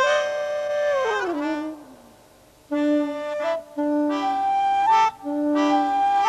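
Soundtrack music on reedy wind instruments: a held chord slides down in pitch and dies away, then after a short pause a series of held chords follows.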